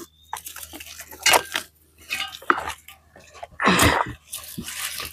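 Handling noise of gardening work: irregular rustles and light knocks, the loudest just under four seconds in.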